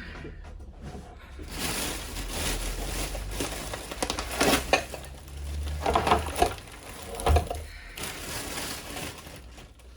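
Packaging rustling and crinkling as shopping items are handled and unpacked, with a few brief knocks about halfway through.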